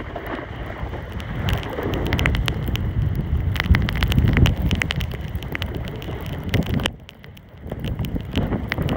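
Wind rushing over the microphone while riding fast down a groomed slope, mixed with the scrape and crackle of board edges cutting through packed snow. It drops away briefly about seven seconds in, then picks up again.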